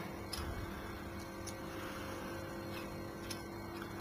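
A few faint, light metallic ticks from hands and a spanner working the nuts of a milling machine's arbor support, over a steady low hum.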